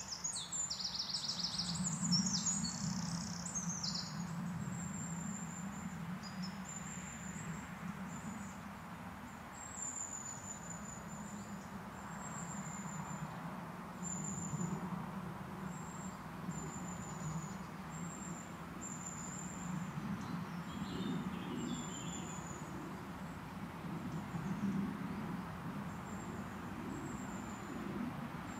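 Woodland birds calling: a short trilled burst of song at the start, then a high thin call repeated every second or so, with a brief chatter about two-thirds of the way through, over a steady low background rumble.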